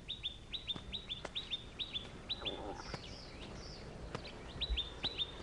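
Small bird chirping: a quick run of short high notes, each falling in pitch, that breaks off about halfway for a few different, higher calls and starts again near the end.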